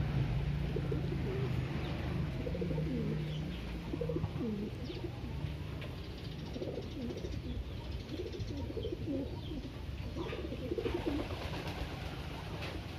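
Feral pigeon cooing, a run of low, bending coos repeated over and over.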